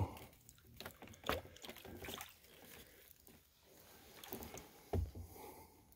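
Kayak paddle dipping quietly into calm water, with a few soft clicks scattered through.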